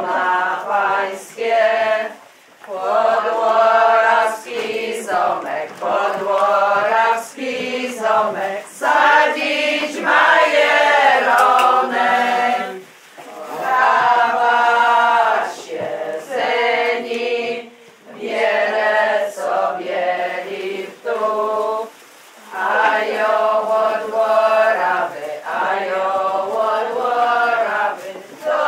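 A group of women singing a song together, unaccompanied, in long phrases broken by short pauses for breath.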